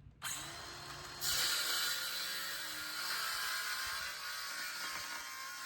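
Circular saw spinning up, then cutting through quarter-inch plywood along a straight-edge guide: a motor note that rises as it starts, then from about a second in a loud, steady cutting noise.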